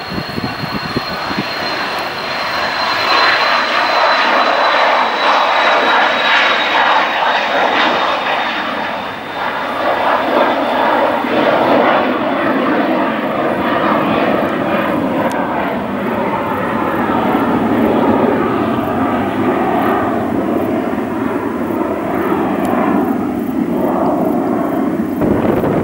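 Small twin-engine business jet taking off at full power and climbing away. A high turbofan whine slides slightly lower in pitch over the first several seconds, over a loud, steady rush of jet noise.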